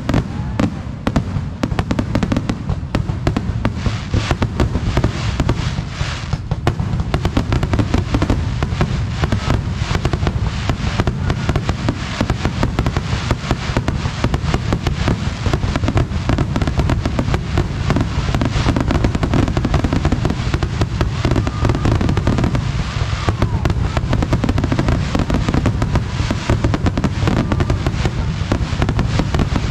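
Aerial fireworks shells bursting in rapid, unbroken succession: a continuous barrage of booms and crackle with a heavy low rumble.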